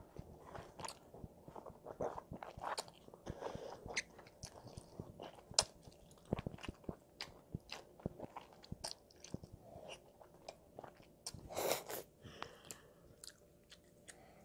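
A child eating jjajangmyeon with a fork: chewing and slurping black bean noodles, with small clicks throughout and one longer, louder noisy burst about eleven seconds in.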